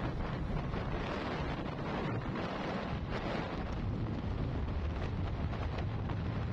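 Steady wind rushing over the microphone, with a low road rumble from a moving vehicle.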